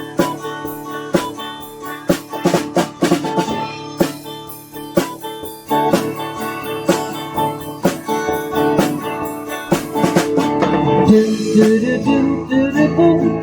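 Live band playing an instrumental passage: guitar with drum kit keeping a steady beat of sharp hits.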